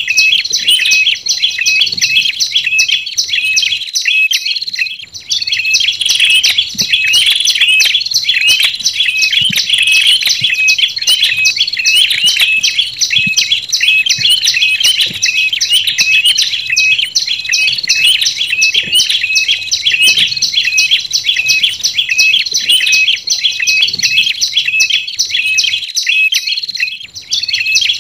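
Olive-backed tailorbird calls mixed with red-headed tailorbird calls, played as a bird-lure recording: a dense run of rapid, high chirps, several a second, with a short break about four seconds in and another near the end.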